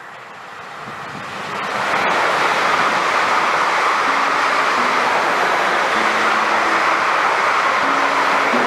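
A train passing at speed: its rushing wheel and rail noise builds over the first two seconds, then holds loud and steady.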